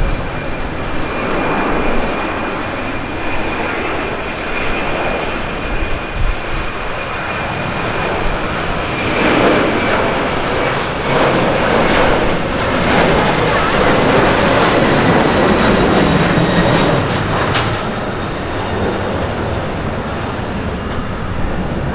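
Boeing 767-300 twin-engine jetliner at takeoff power during its takeoff roll and climb-out: a steady rushing jet-engine noise with a thin high whine that fades out about halfway. The noise grows louder in the second half as the aircraft passes.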